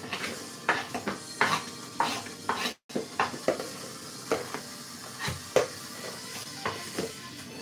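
Kitchen clatter: a knife tapping and scraping diced onion on a wooden chopping board, and utensils knocking, in irregular sharp knocks over a faint steady hiss.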